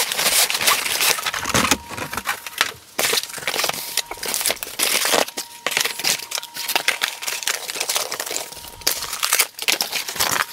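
Cardboard packaging being handled: a box's flaps and inner cardboard tray are pulled open and slid out, making irregular scraping, rustling and crinkling.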